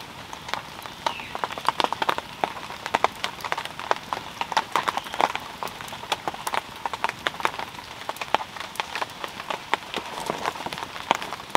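Steady rain falling with a constant hiss, mixed with many sharp, irregular ticks and pops from drops landing close by and a crackling wood campfire.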